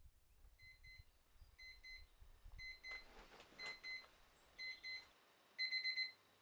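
Electronic alarm beeping in short pairs about once a second, getting louder, with the last burst held longer near the end.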